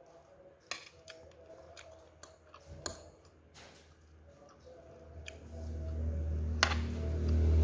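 Metal spoon and fork clicking and scraping against a plate while picking up cooked leaves, a handful of sharp separate clicks. From about five seconds in, a low rumble swells up and grows louder toward the end.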